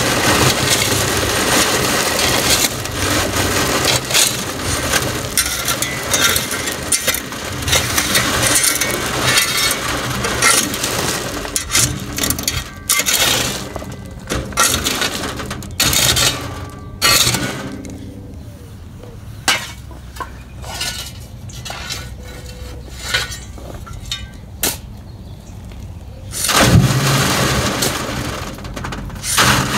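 Soil and small rocks rattling and scraping across a wire-mesh sifting screen on a wooden frame as it is shaken, with stones clinking against the mesh as the fine soil falls through. The sifting is continuous at first, then breaks into separate clattering shakes, with a heavier thump about 27 seconds in before steady rattling resumes.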